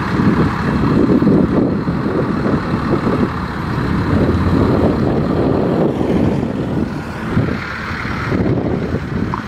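Engine of a full-size Dodge pickup truck running as it drives slowly across the grass, a steady low engine sound.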